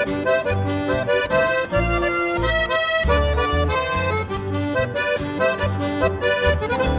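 Background music led by an accordion, with changing melody notes over a regular bass line.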